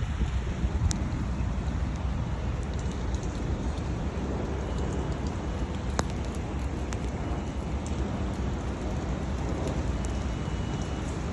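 Steady rain, with a few sharp drop-like taps, one about a second in and a louder one about six seconds in.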